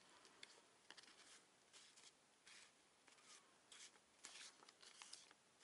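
Faint, irregular rustles and soft ticks of small paper stickers and a glassine pouch being leafed through by hand.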